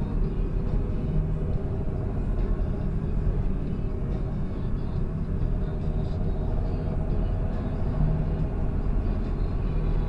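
John Deere 7530 tractor's six-cylinder diesel engine running steadily while driving along a road, heard from inside the cab as a constant low drone.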